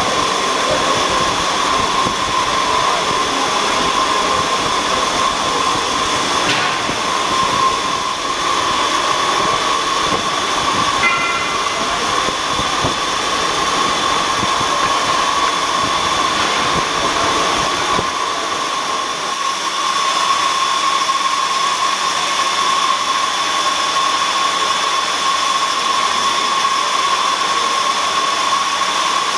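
Double-column horizontal metal-cutting band saw running, its blade cutting through a large square solid metal block: a steady hissing machine noise with a steady high whine over it. A low rumble in the sound drops away about two-thirds of the way through.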